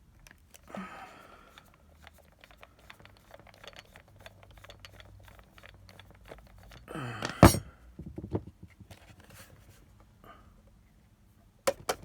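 Small clicks and scrapes of a screwdriver working screws out of a plastic power-supply case. There is one louder knock about seven and a half seconds in and a quick run of sharp clicks near the end.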